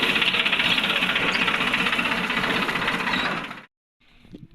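New Holland tractor's diesel engine running with a steady, even chugging. It cuts off suddenly about three and a half seconds in.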